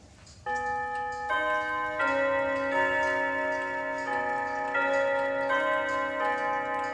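A clock's ticking, faint at first; about half a second in, the clock begins chiming the hour. It plays a slow melody of bell-like notes, a new one about every three-quarters of a second, each ringing on under the next.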